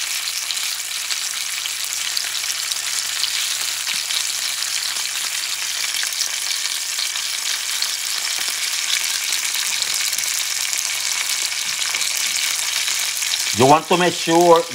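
Ostrich steak frying in hot sunflower oil in a small cast-iron skillet: a steady sizzle.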